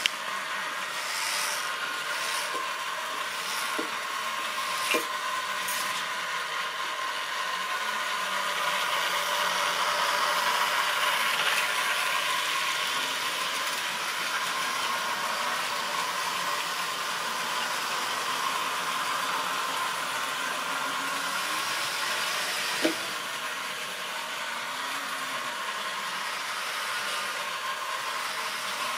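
Tri-ang or Lima OO gauge model freight train running past on sectional track: a steady whir and rattle of the wagons' wheels and the motor, swelling a little in the middle. Now and then a sharp click, the loudest near the end, as wheels cross rail joints or points.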